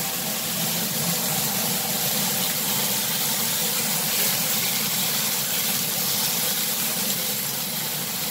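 Beef tenderloin steaks sizzling in hot frying pans, a steady hiss, over a steady low hum of running machinery such as an engine.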